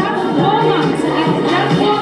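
Line-dance music: a song with a singing voice, playing steadily.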